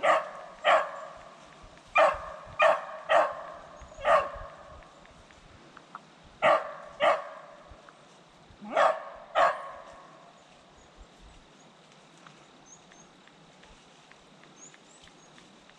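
Beagle barking at a rabbit that has gone to ground in a hole: about ten loud barks in short clusters of two or three, which stop about ten seconds in. Faint bird chirps follow.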